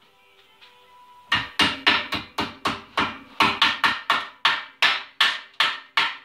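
Hammer blows on a small piece of steel flat stock being bent into shape, a fast even run of about four strikes a second starting about a second in.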